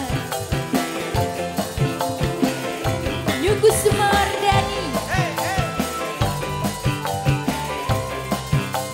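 A female Javanese sinden singing over live band accompaniment with a steady drum beat; her voice slides through an ornamented phrase in the middle.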